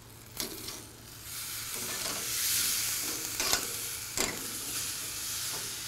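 Sauce-coated spatchcocked chicken sizzling on hot grill grates as it is turned with metal tongs. The sizzle swells about a second in, and the tongs click sharply against the grates a few times.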